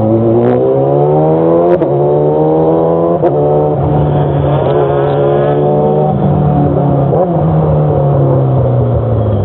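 Motorcycle engine with an aftermarket exhaust accelerating hard, shifting up twice on the quick shifter with a brief crack at each shift. The pitch climbs, then falls away in the second half as the throttle eases off.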